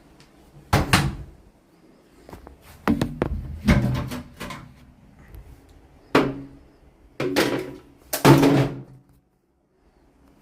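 LG top-loading washing machine in its wash cycle, with the drum turning and laundry and water sloshing in short irregular surges, about six in all, before a brief lull near the end.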